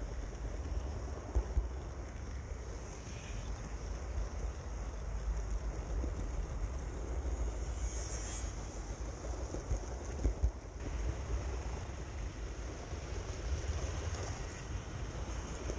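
OO gauge model train running along the track, heard from a camera riding on it: a steady rumble of wheels on rail with a few short sharp clicks.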